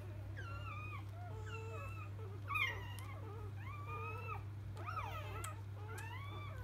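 Newborn Labrador Retriever puppies squeaking and whining in a string of short, high, wavering cries, with one louder squeal about two and a half seconds in. A steady low hum runs underneath.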